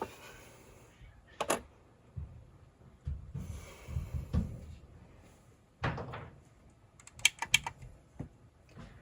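Handling noises on an electronics workbench: scattered clicks and knocks, a few dull thumps near the middle and a quick run of sharp clicks late on.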